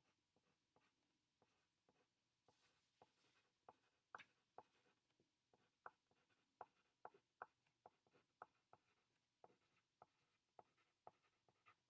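Faint pencil writing on paper: a string of light, irregular taps and scratches as a sentence is written out.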